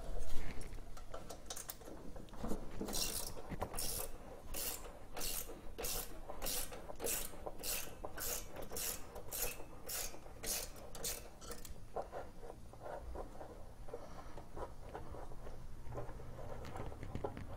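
Ratchet wrench being worked back and forth on an engine bolt, a short rasping click burst about twice a second that stops about twelve seconds in, followed by quieter handling of metal parts.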